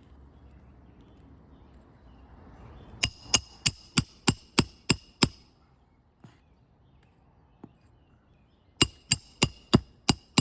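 Roofing hammer driving roofing nails into a new three-tab asphalt shingle: two runs of quick, ringing blows about three a second, eight in the first run and five or six in the second.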